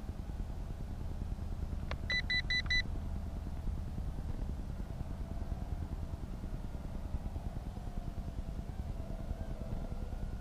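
A quick run of four short, high electronic beeps about two seconds in, over a steady low rumble and a faint wavering whine.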